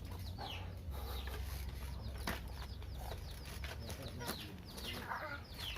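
Dyed baby chicks peeping over and over in short, falling cheeps, over a low steady rumble.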